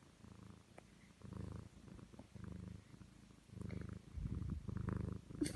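A sleeping domestic cat snoring: a low rasp with each breath, about one a second, louder near the end.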